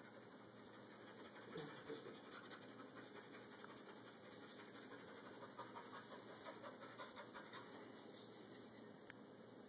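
Near silence, with faint rustling and light crunching from deer fawns browsing leafy branches in wood-shaving bedding. There are a couple of soft crunches early on and a run of small ticks towards the middle.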